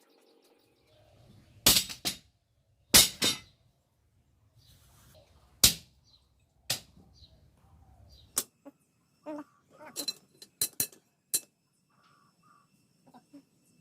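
A series of sharp knocks and clinks, irregularly spaced, typical of hand-tool work. Several loud strikes come in the first six seconds, followed by lighter, quicker taps.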